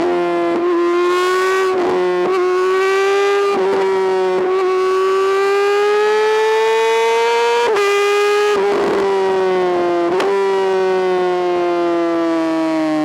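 2008 Honda CBR600RR's 600 cc inline-four running at high revs, a high, steady howl whose pitch slowly rises and falls, with short sharp breaks several times as the revs change.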